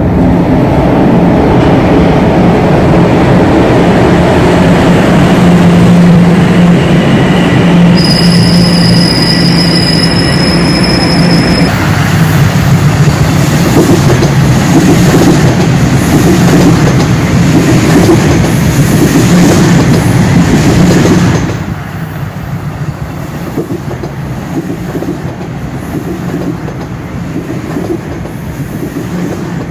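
Toronto subway train running past a platform: a loud rumble of steel wheels on rail with a high wheel squeal for a few seconds about a third of the way in. About two-thirds through, the noise drops suddenly to a quieter train rumble.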